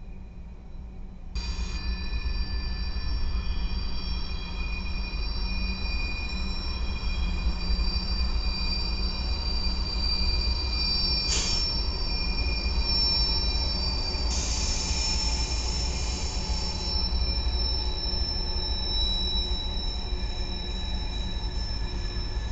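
Freight train's steel wheels squealing against the rail as it rounds a tight curve: several steady high-pitched squeal tones over the low rumble of the locomotives and cars, cutting in sharply about a second and a half in. A brief sharp click about halfway through, and a few seconds of hiss later on.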